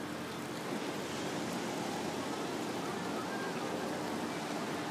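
Steady wash of ocean surf breaking along the beach, heard as an even rushing noise.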